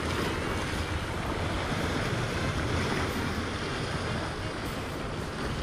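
Steady wind buffeting the microphone over the wash of sea waves.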